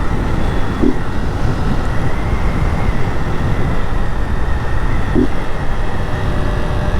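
Honda Start 190 motorcycle's single-cylinder engine running with its air filter removed while riding, mixed with dense low wind and road noise.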